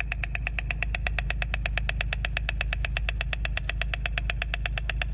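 White stork clattering its bill, a rapid, even wooden rattle of about ten clicks a second, over a low steady rumble.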